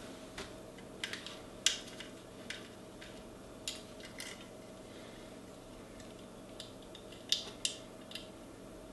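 A small screwdriver and the wire working a tiny push-button terminal screw on a NuTone door station, giving scattered light metallic clicks and taps, about ten in all. A faint steady hum lies underneath.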